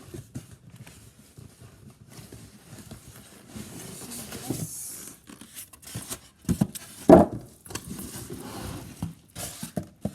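Unpacking a boxed sewing machine: plastic wrapping and packing rustling and crinkling with scattered knocks, and one louder thump about seven seconds in.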